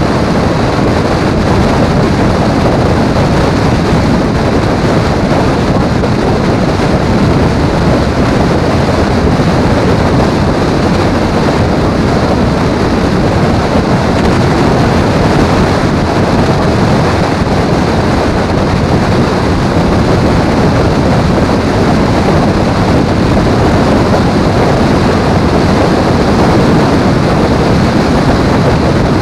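Steady, loud wind rush on the microphone mixed with engine and road noise from a motorcycle cruising at highway speed.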